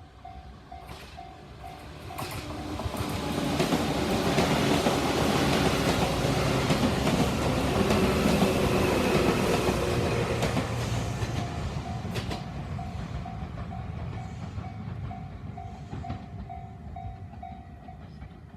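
Level crossing warning bell ringing in a steady, even pulse while a train passes through the crossing. The train's running noise and wheel clatter swell up about two seconds in, drown the bell for several seconds, then fade, and the bell is heard again near the end.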